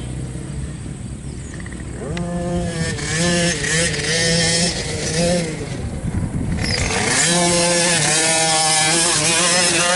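Racing quad (ATV) engine revving hard, its pitch surging up and down with the throttle in several bursts, then louder and held high from about seven seconds in.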